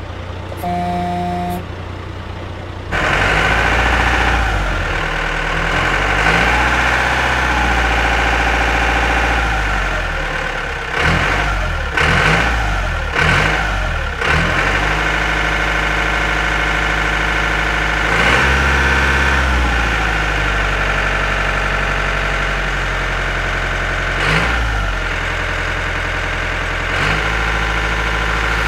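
Engine sound effect for toy farm vehicles: a heavy engine running steadily, its revs shifting several times. A brief pitched tone sounds about a second in, before the engine sound starts.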